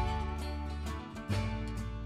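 Background music of plucked string instruments playing a light, country-style tune.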